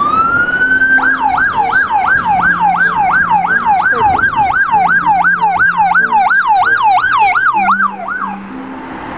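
Police car's electronic siren winding up in one rising wail, then switching to a fast yelp of about three sweeps a second, cutting off near the end.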